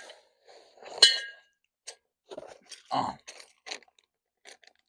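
Deer feeder parts and packaging being handled: a sharp clang with a brief ringing tail about a second in, a heavier knock around three seconds in, and scattered clicks and rustles between.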